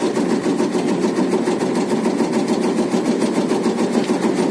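Motorized tobacco-leaf cutting machine running steadily with a fast, even mechanical clatter.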